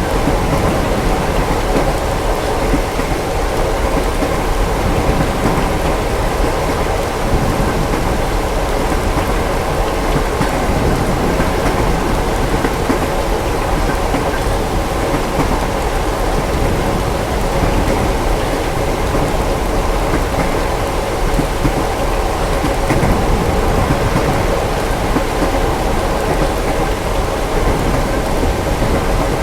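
Ambient mix of steady heavy rain with a continuous low rumble of thunder and a moving train, holding an even level throughout.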